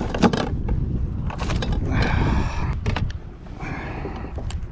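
Wind buffeting the microphone in a steady low rumble, with several sharp clicks and scraping handling noises as a hooked bass is held and unhooked by hand.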